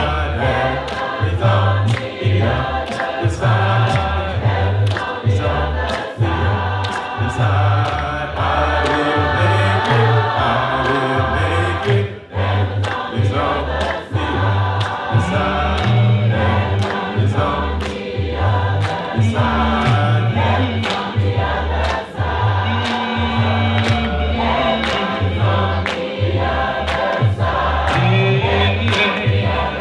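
Gospel choir singing with a bass line and a steady beat underneath.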